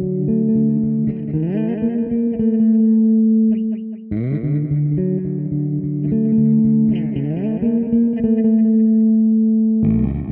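Instrumental background music: guitar and bass playing held notes joined by sliding pitch changes, the phrase repeating about every four seconds. A fuller section comes in near the end.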